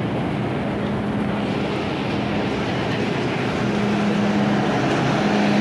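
MTR Island Line M-Train running, a steady rumble with a motor hum that fades and returns, growing slightly louder near the end.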